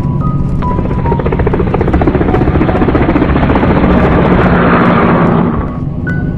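Road and wind noise from riding along a busy highway: a fluttering rush that swells for several seconds and cuts off suddenly near the end, over background music with mallet-like notes.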